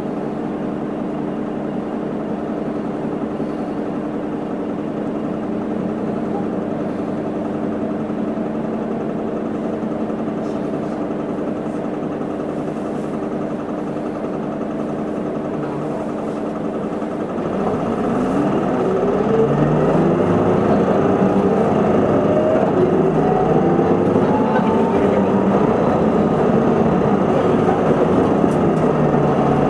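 Isuzu Erga city bus engine idling steadily with the bus at a standstill, then, about eighteen seconds in, revving up and getting louder as the bus pulls away and accelerates, the engine pitch climbing more than once.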